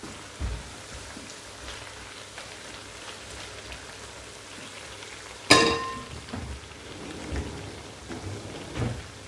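Food sizzling as it fries in oil in a pan. About five and a half seconds in comes a sharp metal clang that rings briefly, and there are a few low knocks.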